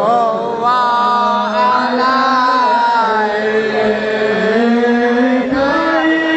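A voice chanting in long, slowly bending held notes over a lower sustained tone, in the manner of a devotional chant.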